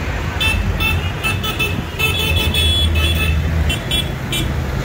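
Tractor engine running low and steady as it passes. Over it, a high-pitched horn toots in a string of short beeps, with one longer blast in the middle.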